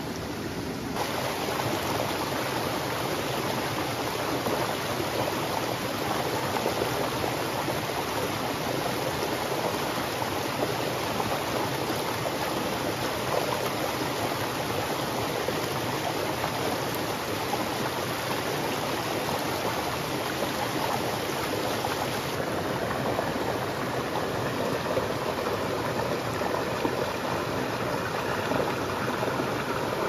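Mountain stream rushing over rocks, a steady wash of running water. It grows louder about a second in and changes character again about two-thirds of the way through.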